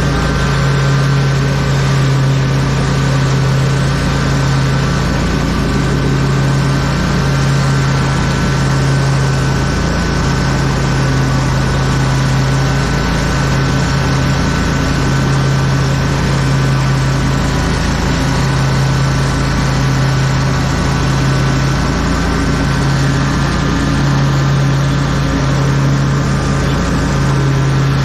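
Lawn mower engine running steadily, a constant low hum with a thin steady whine above it.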